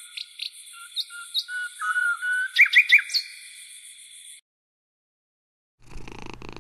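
Birdsong: several birds chirping and whistling over a steady high hiss, with a quick run of loud chirps about three seconds in. It cuts off suddenly after about four seconds, and a low hum starts near the end.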